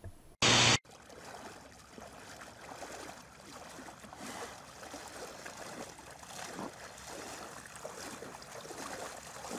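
A brief, loud burst of hiss about half a second in. Then water sloshes and trickles steadily as a wetsuited spearfisher wades through shallow water.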